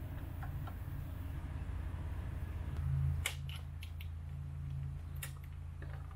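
A few light clicks and taps of hand tools and parts being handled, a quick cluster about three seconds in and two more near the end, over a steady low hum.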